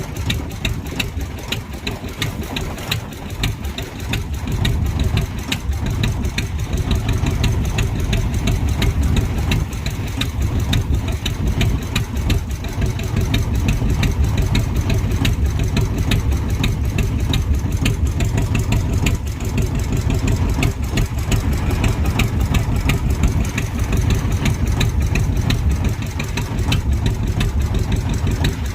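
A loud engine running steadily at a constant speed: a low drone with a fast, even ticking over it.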